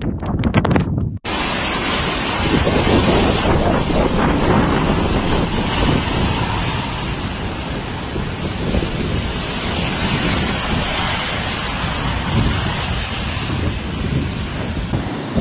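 Strong blizzard wind blowing hard and buffeting the microphone in a dense, steady rush, starting abruptly about a second in.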